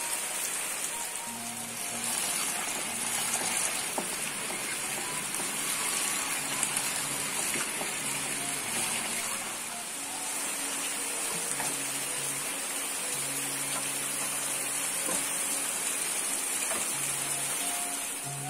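Steady rain falling, a continuous hiss, with quiet background music of slow, held notes that step from pitch to pitch.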